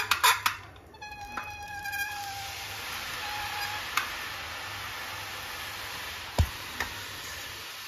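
Hot oil sizzling steadily as fine besan sev dough is pressed from a sev press into the pan, starting about two seconds in after a short squeaky tone. A single knock comes about six and a half seconds in.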